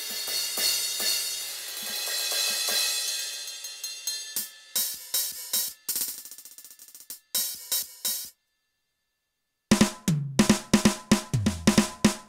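Electronic drum kit sounds from a Roland TD-8 drum module: a cymbal crash rings out over the first few seconds, followed by scattered drum and cymbal hits. After a short silence comes a fast fill with the tom pitches stepping down.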